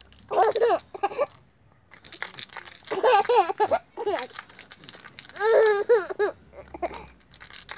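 Two little girls' voices: one making playful babbling noises and the other laughing, in three short bursts with pauses between.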